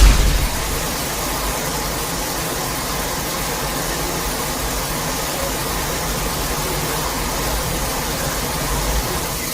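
A steady rushing noise with a deep rumble beneath it, a kaiju sound effect, holding level throughout and beginning to fade near the end.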